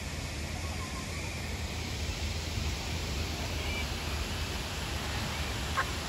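Steady hiss of open-air noise with a low rumble, and a few faint, short bird calls, one of them a quick falling chirp near the end.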